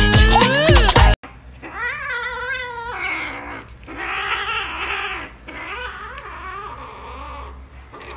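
Loud music for about a second, cut off abruptly. Then a small kitten meows in a series of long, wavering, raspy cries, with food in its mouth.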